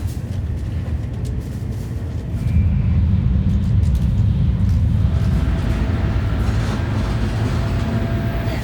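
Low, steady vehicle rumble, which gets louder about two and a half seconds in.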